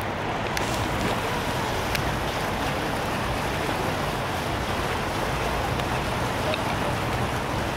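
Steady rushing noise of the flood-swollen Seine's fast current, with a low traffic rumble underneath.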